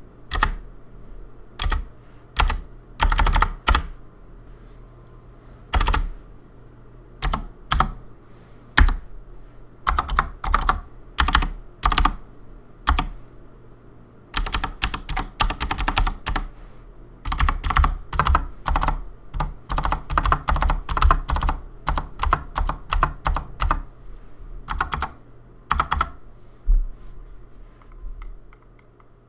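Typing on a Keychron C2 mechanical keyboard with Outemu Phoenix clicky switches (62 g) and PBT XDA keycaps: sharp clicky keystrokes, some single and some in quick runs, with short pauses between bursts.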